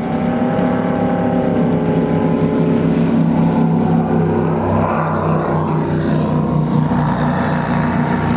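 Wellcraft Scarab 38KV powerboat's engines running under way, the pitch rising slightly in the first second and then holding steady.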